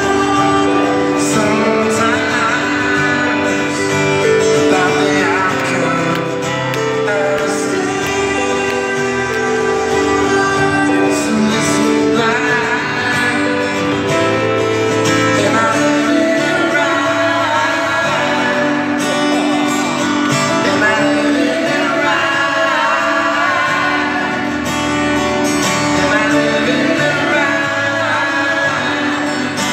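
Live band performance: a male lead vocal over acoustic guitar strumming, backed by electric guitars, bass and drums, recorded from the crowd in an arena.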